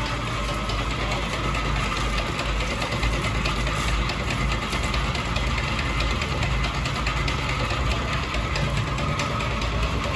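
A motor or engine running steadily with a low rumble, without changing pace.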